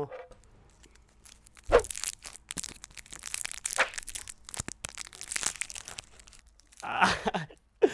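Plastic lollipop wrapper crinkling and tearing right at an ASMR microphone: irregular dry crackles, loudest about two seconds in and again near the end.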